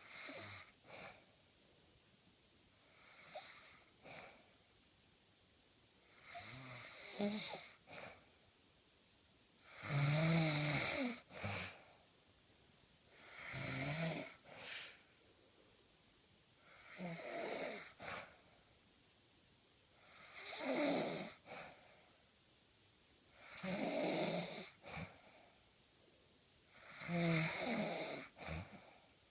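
A person snoring in a slow, regular rhythm: about nine snores, one every three and a half seconds. Each lasts a second or so and is followed by a short second breath.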